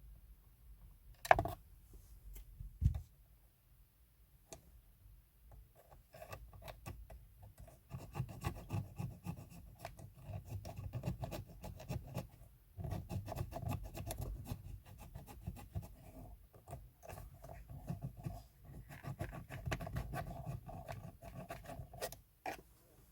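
Small metal file rasping back and forth in runs of repeated strokes, with short pauses between runs. Two sharp knocks come before the filing starts.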